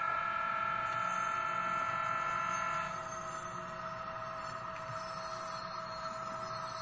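HO scale model train running slowly as the locomotive shoves a freight car through a switch: a steady electric hum at a fixed pitch, dropping slightly in level about three seconds in.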